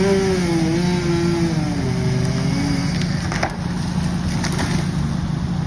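Excavator's diesel engine working under hydraulic load while digging out a tree stump, its pitch wavering up and down, with a couple of sharp knocks past the middle.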